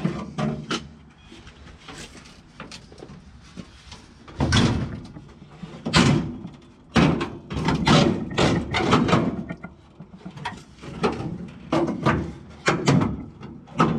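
Irregular metal clanks and knocks from a rusted, riveted floor section of a 1936 Ford three-window coupe being worked loose, with the loudest hits about four and a half and six seconds in and a quick run of them from about seven to nine seconds.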